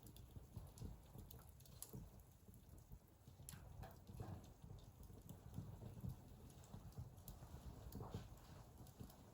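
Wood fire burning in a fireplace, faint: a low steady rumble with scattered crackles and pops.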